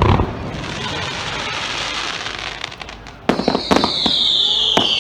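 Starmine fireworks: a shell bursts with a boom, followed by a long crackle, then a few sharp bangs about three seconds in and a high whistle that slowly falls in pitch.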